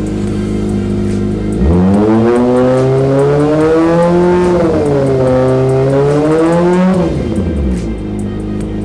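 Kawasaki Ninja ZX-25R's inline-four through an Austin Racing GP1R exhaust, run with only the large baffle fitted and no dB killer. It idles, then about two seconds in is revved up and held high, climbs to a peak, dips and climbs again, and drops back to idle about seven seconds in.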